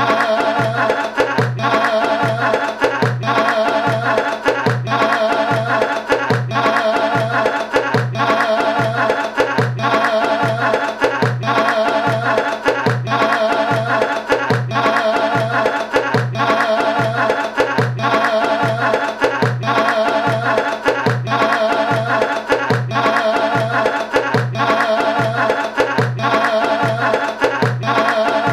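Looping Middle Eastern-style folk music with a steady, fast percussion beat, a bass note pulsing about twice a second and a wavering reedy melody line.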